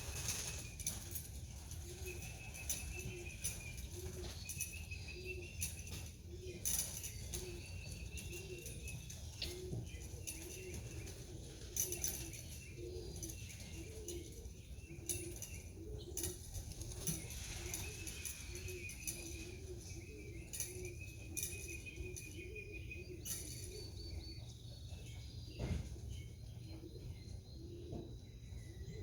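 Pigeons trapping into their loft: wings flap and clatter now and then, over steady low cooing repeated about every half second, with higher bird chirps in the background.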